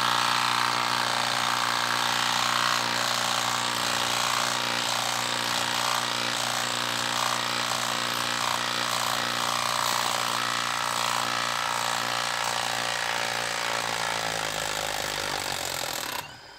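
Milwaukee M18 Fuel half-inch compact impact wrench hammering steadily at full power as it backs an 8-inch lag bolt out of a log, then stopping shortly before the end as the bolt comes free.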